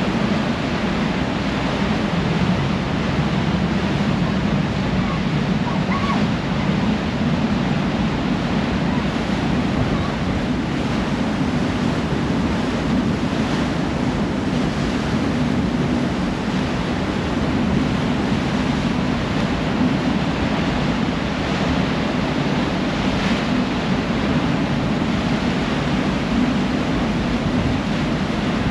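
Steady rush of churning wake water behind a moving harbour ferry, with wind buffeting the microphone and a low, even rumble underneath.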